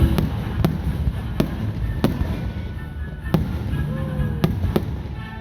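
Fireworks going off: a string of sharp bangs at irregular intervals, several a few seconds apart, over a low rumble, with music playing underneath.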